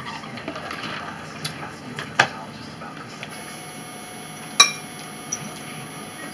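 Dishes and cutlery clinking at a dinner table: a few sharp knocks, the loudest a ringing clink about four and a half seconds in.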